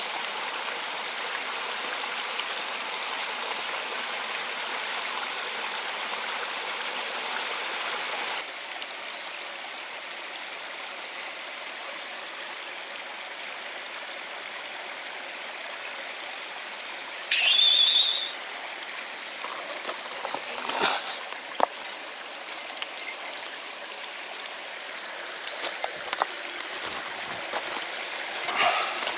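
Mountain stream running with a steady rushing hiss, a little quieter after about eight seconds. Just past halfway comes a loud, high whistling tone lasting about a second. Scattered light clicks and faint high chirps follow near the end.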